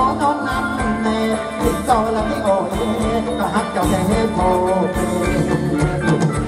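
Live band playing Thai ramwong dance music with a steady beat.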